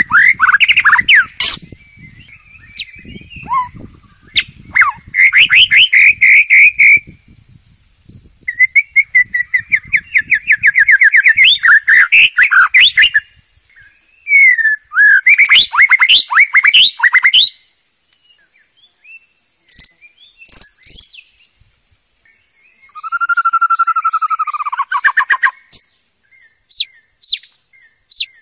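White-rumped shama singing: loud, varied phrases of quick whistled and chattering notes, each a few seconds long with short pauses between. There is a lower, sliding phrase a little over 20 seconds in, and a series of single sharp notes near the end.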